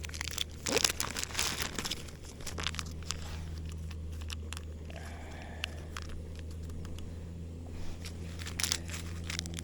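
Plastic noodle packaging and sachets crinkling and tearing open in scattered bursts, busiest at the start and again near the end, over a steady low hum.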